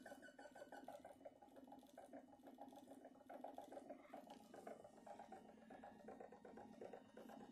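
Faint, rapid, even ticking from a homemade pulse motor's drive coils and spinning rotor, just started on a new driver circuit whose timing is a little off. A faint high whine fades out about a second in.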